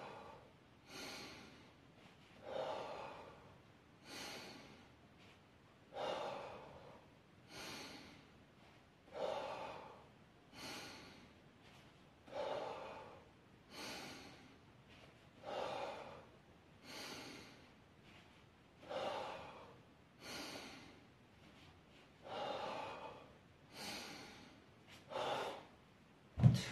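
A man breathing hard, in and out, while doing dumbbell lateral raises with 4 kg dumbbells: a breath about every second and a half, alternating louder and softer. Just before the end there is a single loud thump as the dumbbells are set down.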